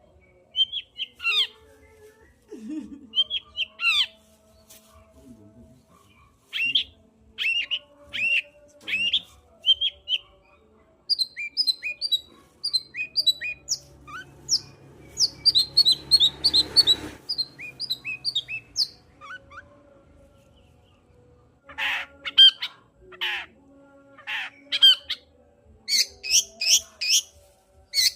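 Long-tailed shrike (cendet) singing energetically in quick runs of short, sharp, downward-sweeping notes, with a brief pause and then louder, harsher calls near the end.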